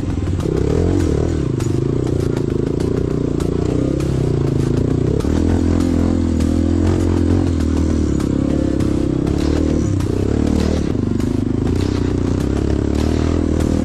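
Honda CRF150 dirt bike's single-cylinder four-stroke engine running under load, its note changing pitch about five seconds in and again near ten seconds as the throttle and gears change. Rattles and small knocks from the bike riding over rough, rutted ground.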